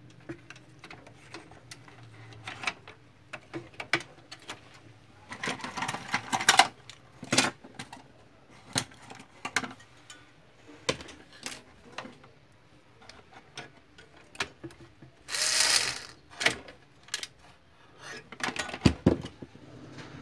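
Scattered clicks and knocks of plastic and metal laser-printer parts being handled while the cooling fan is fitted into the printer. There are two longer scraping sounds, one about six seconds in and one near sixteen seconds.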